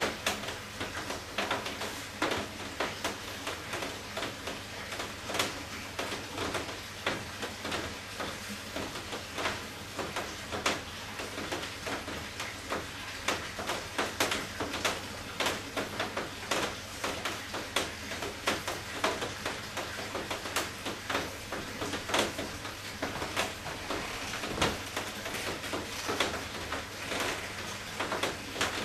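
Irregular soft clicks and crinkling from hands squeezing a piping bag and pressing blue joint mortar into the joints between brick tiles, over a steady low hum.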